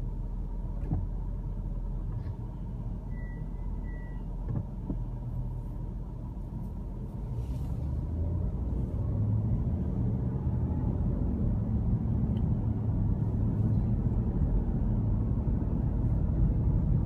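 Car interior road and engine noise: a steady low rumble that grows louder about halfway through as the car moves off and gathers speed. Two short high beeps sound about three seconds in.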